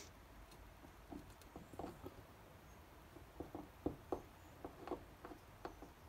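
Faint, irregular light clicks and taps from small metal hand tools and switch parts being handled on a workbench. They come more often in the second half.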